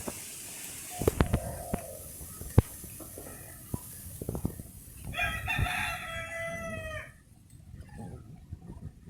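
A rooster crowing once, a pitched call of nearly two seconds starting about five seconds in, with a fainter call about a second in. Under it a steady hiss of wind in the trees stops near the end, and scattered sharp knocks and clicks come throughout.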